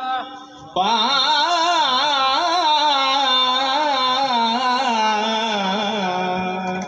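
A male kirtan singer holding one long drawn-out sung note, coming in loudly about a second in, its pitch wavering and curling in ornaments before settling lower near the end.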